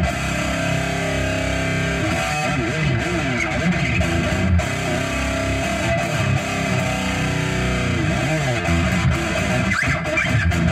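Electric guitar playing a slow lead line of held notes that bend and waver in pitch.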